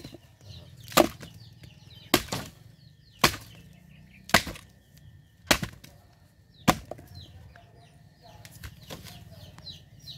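A nipa palm fruit head is whacked against a wooden log, about one sharp knock a second, six times, breaking the fruit cluster apart. Only smaller knocks follow near the end.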